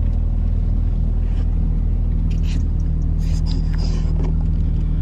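Steady low road rumble inside a moving car's cabin, with a few light rustles from the camera being handled about halfway through.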